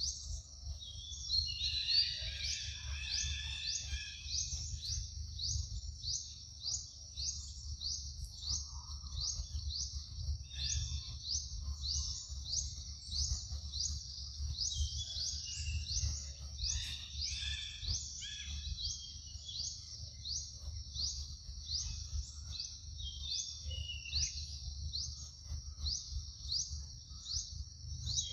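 Forest ambience: a high, rising chirp repeated steadily, nearly twice a second, throughout. Bursts of lower bird calls come in about two seconds in and again around fifteen to nineteen seconds in, over a low steady rumble.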